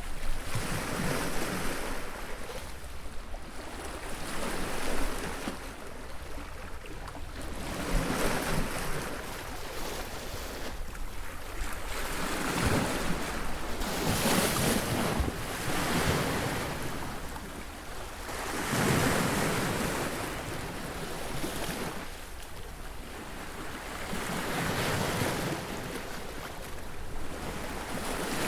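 Sea waves breaking on a beach, the surf swelling and washing back in repeated surges a few seconds apart, with some wind on the microphone.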